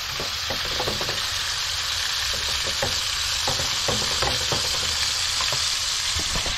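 Bacon, black pudding and flat sausage sizzling in a frying pan with a steady hiss, with scattered light taps and scrapes of a slotted spatula turning the food in the pan.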